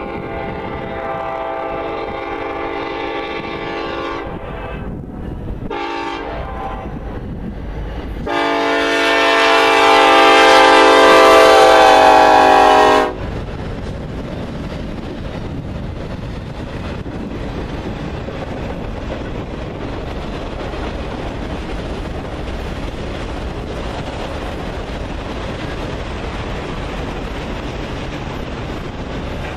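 Diesel locomotive air horn sounding a multi-note chord for a grade crossing: a long blast, a short one, then the loudest long blast as the EMD SD70ACe locomotive passes. It is followed by the steady rumble and rattle of loaded autorack cars rolling by.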